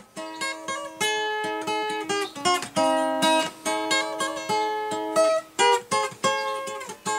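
Takamine cutaway acoustic guitar played solo, a run of separately picked notes and chords that each ring on.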